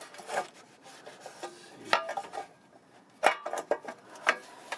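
Thin metal fuel-filter cover plate scraping and knocking against the car's underbody as it is worked onto its two mounting studs, with a few sharp clicks and knocks.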